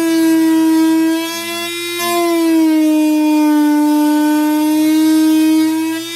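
Small power sanding machine's motor whining steadily as a guitar saddle is shaped against it, its pitch sagging under load for a few seconds and recovering near the end.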